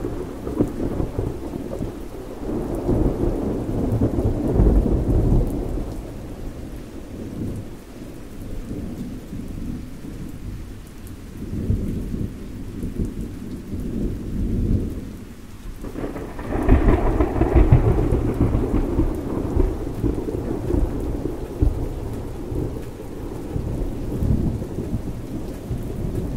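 Low, uneven rumbling and rustling from a cardboard vacuum-tube box and a glass preamp tube being handled close to the microphone, with a louder rustle a little past the middle.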